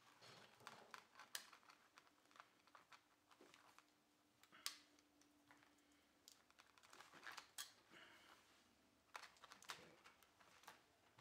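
Faint, scattered clicks and small rattles of hog ring pliers squeezing hog rings closed around a tension cable and plastic fence mesh, with a few sharper snaps among them.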